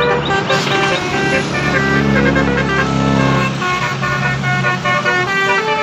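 Bus 'telolet' multi-tone horn playing a quick tune of short melodic notes, with a low rumble underneath that swells midway.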